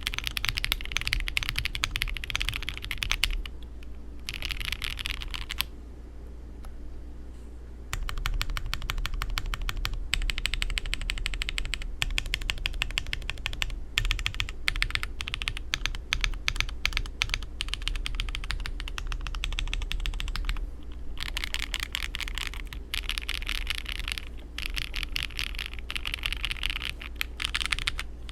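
Typing sound test on an Akko SPR67 spring-mounted 65% mechanical keyboard: fast runs of keystrokes, broken by short pauses and a lull of about two seconds around six seconds in.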